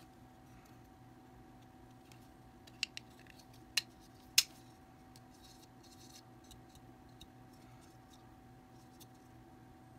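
A few sharp plastic clicks and taps as a small black blower fan is handled and pressed against a plastic fitting. Two light clicks come close together about three seconds in, then two louder ones, the loudest about four and a half seconds in, over a faint steady hum.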